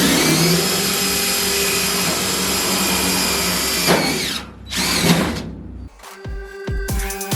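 Electric drill with a 1/8-inch bit running through 18-gauge sheet steel to make holes for Cleco fasteners: it spins up, runs steadily for about four seconds and winds down, then runs again briefly. About six seconds in, music with a steady drum beat starts.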